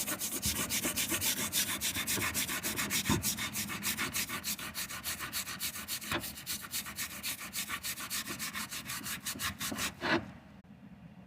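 Rapid, even back-and-forth strokes of an abrasive being rubbed by hand over the rusty steel of a vintage 12-inch Crescent wrench, taking it down to bare metal. The strokes stop abruptly about ten seconds in.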